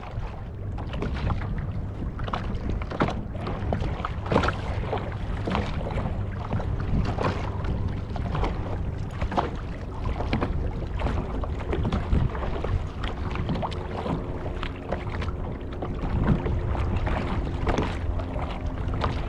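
Wind buffeting the microphone on a kayak, with water lapping against the hull and many irregular small knocks and splashes.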